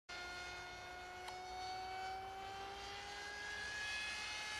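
Electric motor of a Pushy Cat Jet RC model plane whining in flight, one steady pitched tone that rises slowly.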